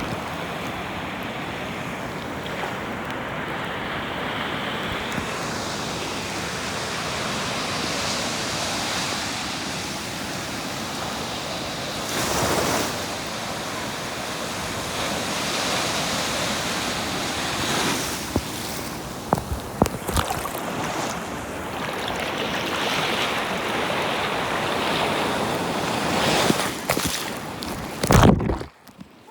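Surf washing in on a shore, a steady rush that swells and eases, with a few brief sharp knocks past the middle. The sound drops away suddenly just before the end.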